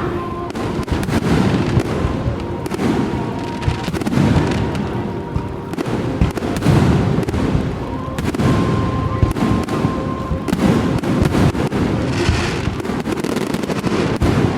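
Fireworks display: a continuous barrage of overlapping booms and crackling bursts.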